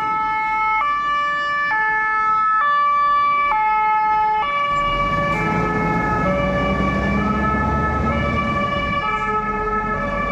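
Scania fire engine's two-tone siren sounding high-low, changing about once a second, on an emergency run. Its diesel engine comes up loud as the truck passes close by about halfway through, then fades as it drives off.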